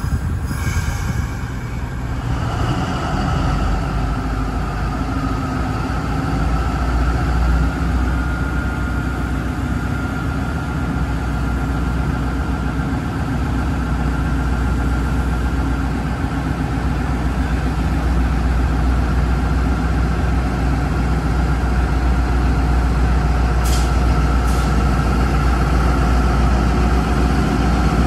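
Diesel-electric locomotive engine idling: a steady deep hum with a steady high whine above it, growing slowly louder. There are two brief high ticks about 24 seconds in.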